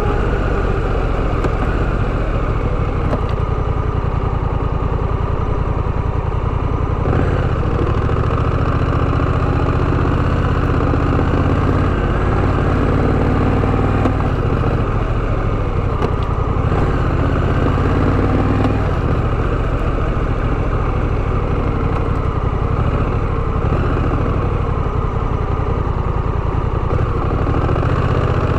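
Honda Rebel 1100's parallel-twin engine running steadily, its note shifting slightly about 7 and 16 seconds in.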